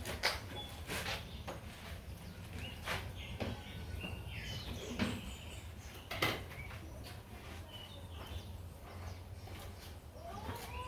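Scattered knocks and clatter, with short bird chirps in the background over a steady low hum.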